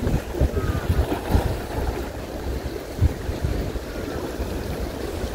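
Wind buffeting the microphone in uneven gusts, over the wash of river water against the shore.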